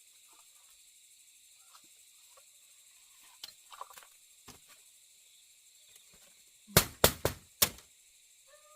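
Faint light taps and rustles, then four loud, sharp knocks in quick succession near the end.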